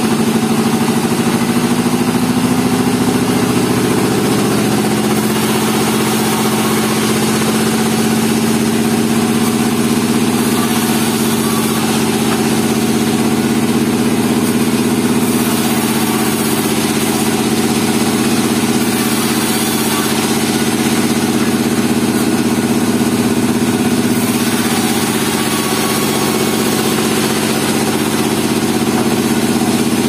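Vertical band sawmill running with a loud, steady drone while pine logs and boards are fed through the blade; the pitch wavers slightly.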